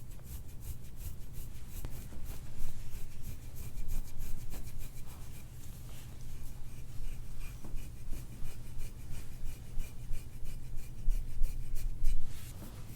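Massage strokes rubbing and scraping over the oiled skin of a person's back in quick, uneven passes, with a low rumble underneath.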